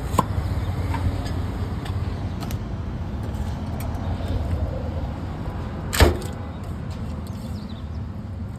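Steady low rumble of road traffic, with a few light clicks and one sharp knock about six seconds in.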